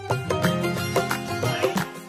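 Instrumental folk-style background music with a steady percussive beat under sustained melodic tones.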